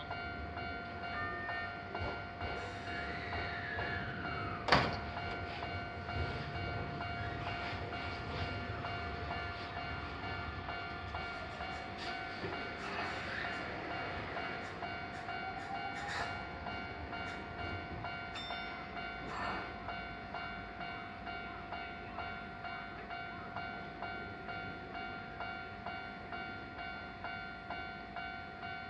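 Keio Inokashira Line electric train at a Japanese level crossing, with the crossing alarm ringing steadily throughout. A whine falls in pitch a few seconds in, a single sharp clunk comes about five seconds in, and a whine rises again midway with scattered clicks.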